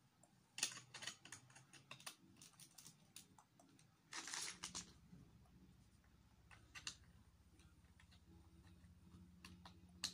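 Plastic Lego bricks clicking and clattering as they are handled and pressed together, with a short rattle about four seconds in.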